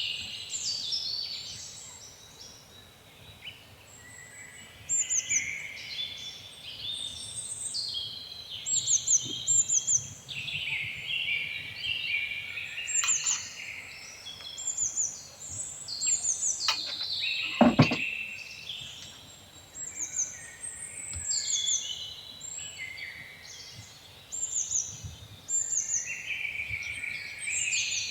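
Songbirds singing and chirping continuously, with many quick descending high notes. One sharp knock sounds about two-thirds of the way through.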